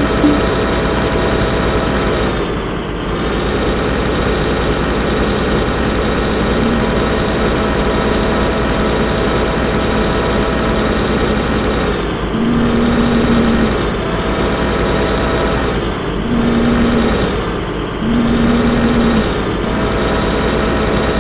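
Excavator engine running steadily. Three brief, louder stretches in the second half carry an added higher tone.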